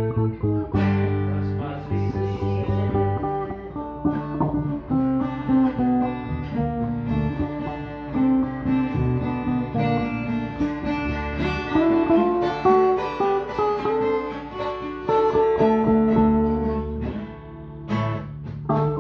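Stratocaster-style electric guitar playing strummed chords and single-note lines, the notes ringing and changing every second or so. The playing eases briefly near the end, then picks up again.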